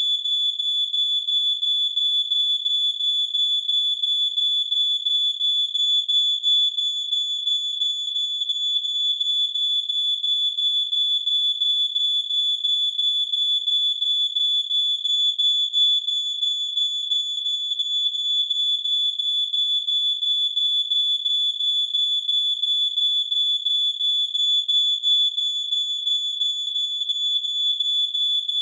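Smoke alarm sounding one unbroken, shrill, high-pitched electronic tone with a fast flutter.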